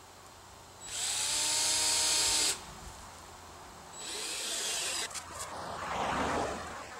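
Handheld power drill run in two bursts into a 2x4 board, the first about a second in and lasting about a second and a half with its motor rising in pitch as it spins up, the second shorter, a few seconds in. A short scuffing sound follows near the end.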